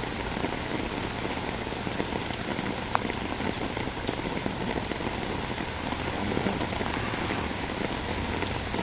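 Heavy rain falling steadily: an even hiss with a faint tap here and there.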